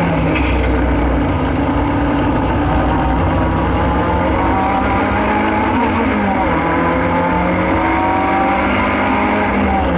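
Race-prepared Renault Clio's engine heard from inside the cabin while lapping a circuit. The revs climb steadily under load, drop about six seconds in, then climb again.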